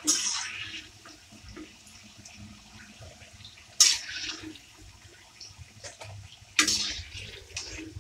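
Pakoras deep-frying in a kadai of hot oil, a steady low sizzle as a metal skimmer stirs them. Three sudden louder bursts of sizzle and scraping come at the start, about four seconds in, and late on, each dying away within about half a second.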